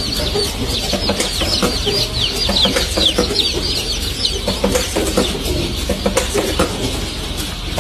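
Many day-old chicks peeping together: a dense chorus of short, high, falling peeps, with scattered clicks and a low steady rumble underneath.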